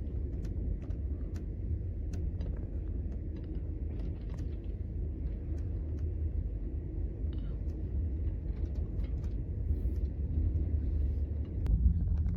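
Steady low rumble of a moving passenger train, heard from inside a carriage, with scattered light clicks and rattles and a brief swell near the end.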